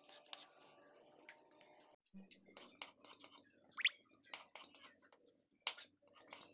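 Kitchen knife slicing button mushrooms on a plastic chopping board: a run of quiet, irregular clicks and taps as the blade meets the board.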